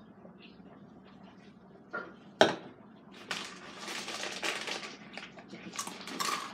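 A drink can set down on a table with one sharp knock about two and a half seconds in, then a foil snack bag of Takis crinkling and rustling as it is handled.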